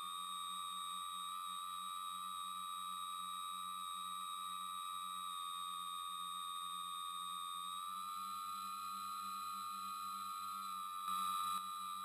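Tricopter's electric motors and propellers whining steadily, heard up close from the onboard camera. The pitch steps up a little about eight seconds in as the craft climbs, and the sound briefly gets louder near the end.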